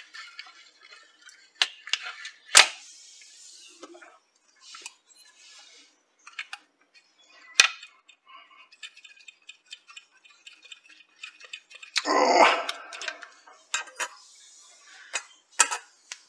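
Scattered sharp clicks and light clinks from handling small parts: a micro-USB charging cable is worked in and pulled from the radio's circuit-board charging port, and tools tap the board. The loudest click is about two and a half seconds in, and there is a louder rustling patch about twelve seconds in.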